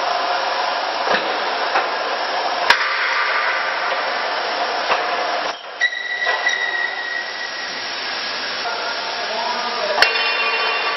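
Steady running noise of machinery, with a few sharp metal knocks. About six seconds in, a clang rings on briefly.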